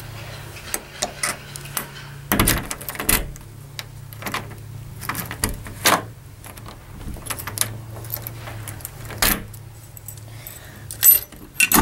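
Keys jangling and a key being worked in a door's deadbolt and knob lock: a series of sharp metallic clicks and rattles, loudest about two and a half seconds in and again near the end.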